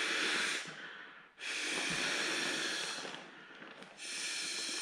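Long breaths blown into the valve of a Sea to Summit Aeros Premium inflatable camp pillow, inflating it by mouth. One breath trails off within the first second, a second runs about a second and a half from just after the first second, and a third begins near the end.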